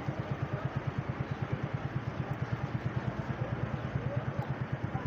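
Small motorcycle engine running at low, steady revs, with an even pulsing exhaust beat of about ten pulses a second.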